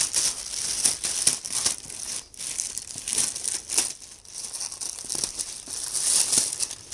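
Plastic postal mailer bag crinkling and rustling as it is handled and cut open with scissors, in irregular short crackles and snips.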